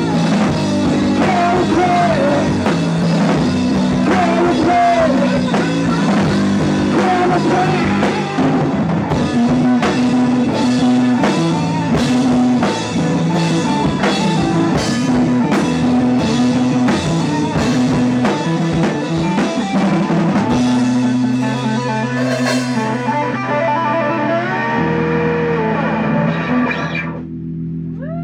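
Rock band playing live: electric guitars, bass and drum kit, the drums striking an even beat of about two hits a second through the middle. About three quarters of the way in the drums stop and the guitars ring on with held notes.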